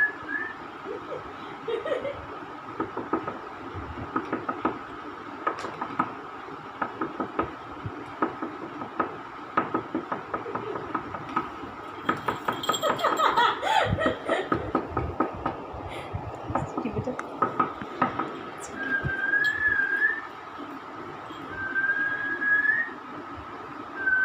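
Many quick light clicks and taps, then, from about two-thirds of the way in, a person whistling three short wavering phrases to get a Labrador puppy's attention. A faint steady high tone runs underneath.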